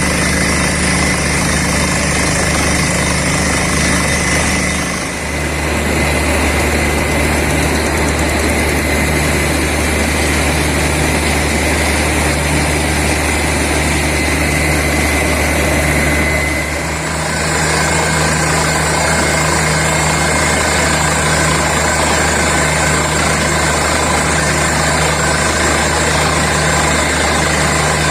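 Borewell drilling rig's engines running loudly and steadily. Their note dips and changes briefly twice, about five seconds in and again about two-thirds of the way through.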